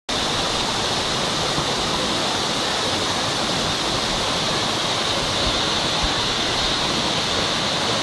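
Waterfall: water pouring down a tiered rock face, a steady rushing that cuts in abruptly at the start.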